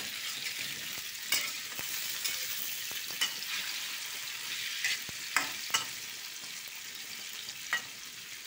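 Tofu cubes frying in a little oil in a wok, with a steady high sizzle. A metal spatula scrapes and clinks against the wok about six times as the tofu is turned.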